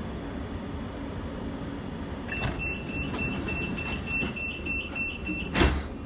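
Train door-closing warning: a quick run of short high beeps on one pitch, about four a second, ending in a loud thump as the sliding doors shut, over the low rumble of a standing train.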